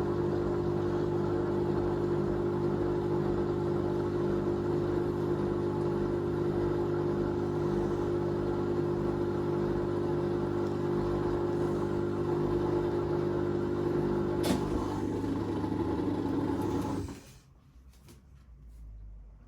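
Teco top-load agitator washing machine running in its first rinse: a steady motor hum that shifts slightly about 14 seconds in and stops suddenly about 17 seconds in.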